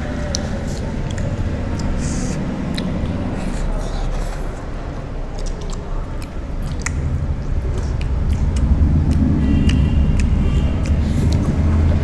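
A steady low rumble that swells over the last few seconds, with faint scattered clicks over it.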